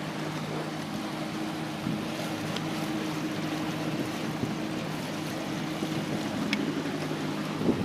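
Boat motor running at a steady speed, a constant low hum, over the rush of water and wind past the hull.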